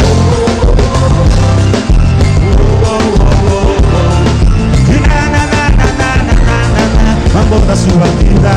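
Loud band music with heavy, pulsing bass and a melodic lead line.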